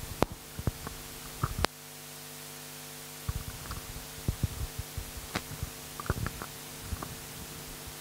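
Steady electrical hum with scattered short clicks and soft knocks, a few near the start and a denser run from about three seconds in.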